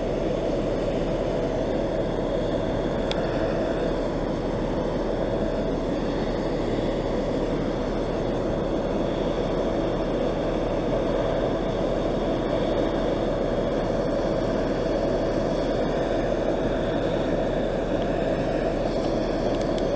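Class 43 HST power car's diesel engine running with a steady drone as the InterCity 125 pulls slowly out of the platform.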